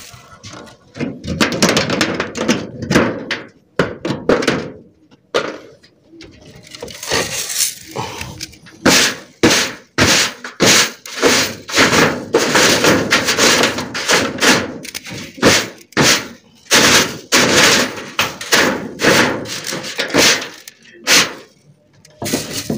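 A long run of sharp knocks and bangs, several a second, starting about seven seconds in, with scuffling handling noise before it.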